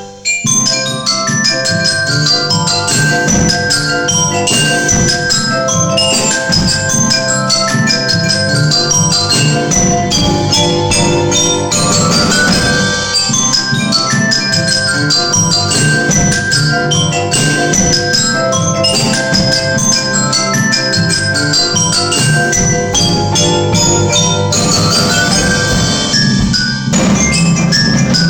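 Music made of fast, bell-like pitched notes in dense patterns, with rising runs about twelve seconds in and again near the end, over a steady low drone.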